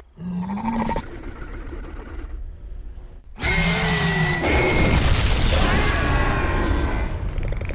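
Dinosaur vocalisation sound effects: a short low growl rising in pitch at the start, then a quieter rumbling stretch. From about three and a half seconds in comes a loud, long call of several pitched tones lasting about three seconds.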